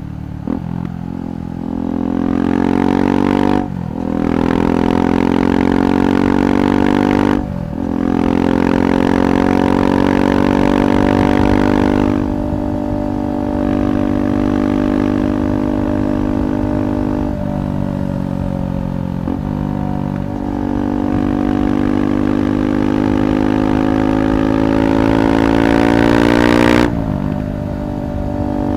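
KTM 390 Adventure's single-cylinder engine through a Red Rooster aftermarket exhaust, riding under load. The pitch climbs as it pulls and drops sharply at gear changes about 4 and 7½ seconds in, then runs through a long, slowly rising pull with a few small dips before another sharp drop near the end.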